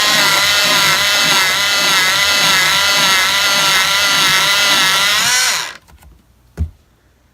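Electric pencil sharpener motor running and grinding a pencil, its whine wavering up and down with the load, then cutting off about five and a half seconds in. A single short knock follows about a second later.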